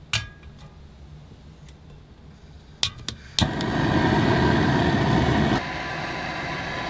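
A few clicks, then an electric appliance switched on about halfway through: a steady whirring motor noise that starts abruptly and drops to a lower setting about two seconds later, loud enough to mask the wind outside.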